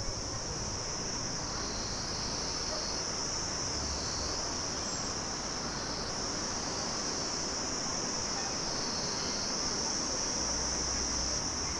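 A chorus of insects making a high, continuous buzz that swells and eases every few seconds.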